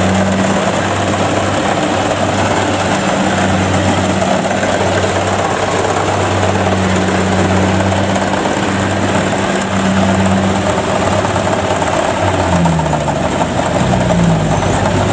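Kubota DC70 combine harvester's diesel engine running steadily under load while it cuts and threshes rice, with a broad rattle of machinery over the engine. Two short rising whines come near the end.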